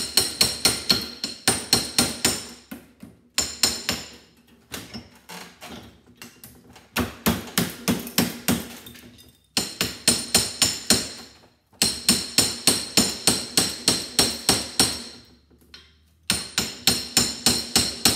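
Hammer striking a steel punch to drive the laminated plates out of a transformer core held in a bench vise. Runs of quick blows, about three a second, each with a bright metallic ring, broken by short pauses.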